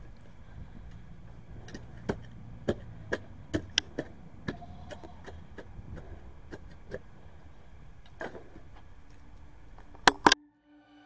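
Steel shovel digging into turf and soil: a series of sharp knocks roughly every half second as the blade chops in, with two loud strikes near the end before the sound cuts off suddenly.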